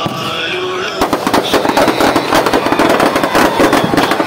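Firecrackers packed inside a burning Ravana effigy start going off about a second in: a loud, rapid, continuous crackle of bangs over crowd voices.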